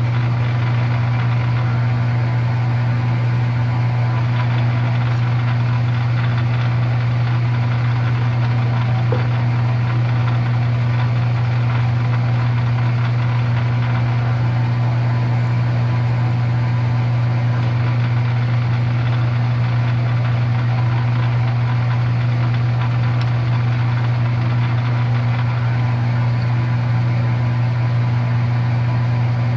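Metal lathe running steadily in back gear, a constant motor hum, while a 5/8-inch reamer is fed slowly into a bronze-style bushing a little at a time.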